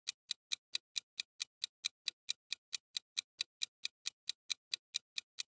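Countdown-timer ticking sound effect: quick, even clock-like ticks, about five a second.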